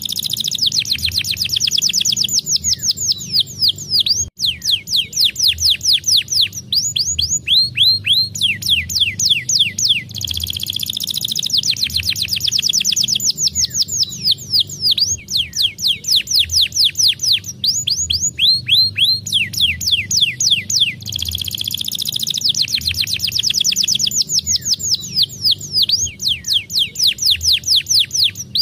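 Domestic canary singing a long, fast song: runs of rapid, repeated falling whistled notes, many to the second, changing phrase every few seconds with brief breaks.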